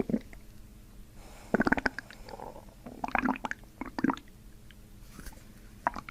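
Human stomach and intestines gurgling in a few separate bubbly bursts. The loudest comes about a second and a half in, with shorter ones around three and four seconds. These are gut-release gurgles of gas and fluid shifting in the bowel as the abdomen is worked on.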